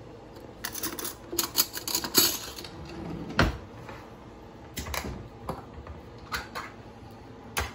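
Quick run of sharp clicks and taps, then single sharp clicks about a second apart: a metal can of cherry pie filling being handled and opened at the counter.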